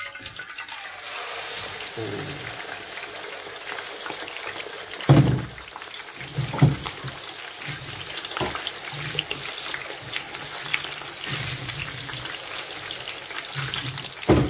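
Whole tilapia frying in hot oil in a frying pan, a steady sizzle, broken by four short sharp knocks, the first about five seconds in and the loudest.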